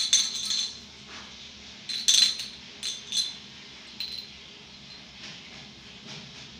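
Glass bottle clinking and rattling as it is shaken and handled: sharp, ringing clinks in a few short bursts, the last about four seconds in.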